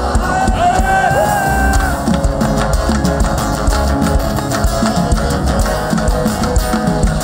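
Live gospel worship band playing loud, upbeat music with drum kit, bass and electric guitar.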